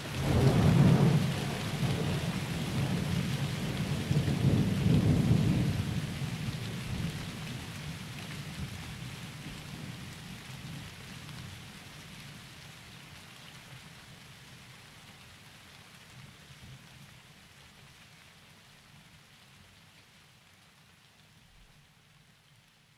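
Thunder rumbling over steady rain, with two loud peaks about a second and five seconds in, then rolling away and slowly fading out.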